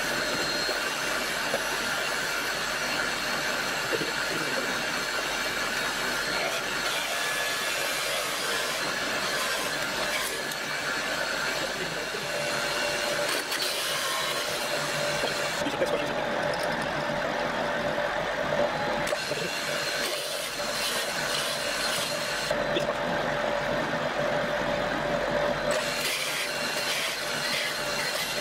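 Hole saw in a milling-drilling machine spindle boring through a pine board, a steady dense cutting noise over the machine's running hum. The high cutting hiss drops away twice in the second half, leaving the machine running.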